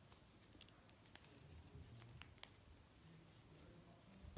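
Near silence: a few faint light ticks and rustles from hands handling yarn on a plastic pompom maker.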